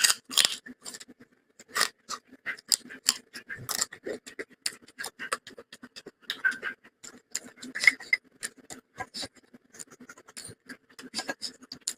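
Close-miked chewing and mouth sounds of a person eating: irregular wet smacks and clicks, a few of them louder.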